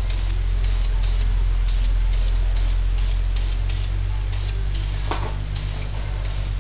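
Krylon aerosol spray can spraying metallic silver paint, an even hiss over a steady low hum. There is a single click about five seconds in.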